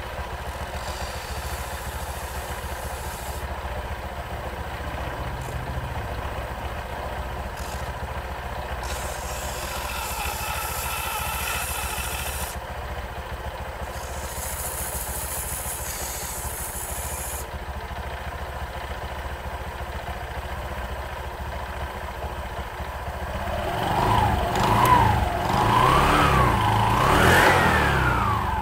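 Honda Vario eSP scooter engine idling steadily, then revved up and down three or four times near the end before dropping away.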